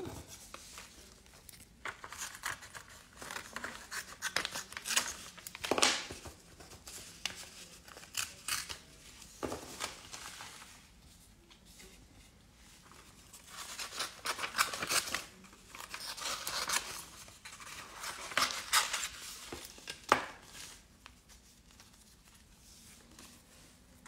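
Scissors snipping through a plastic nail-sticker packet: a series of short, crisp cuts in two main bouts, with quieter pauses between.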